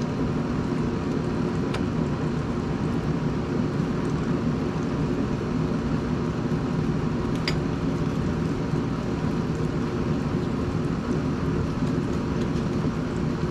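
Steady low machine hum and rumble, with two light clicks.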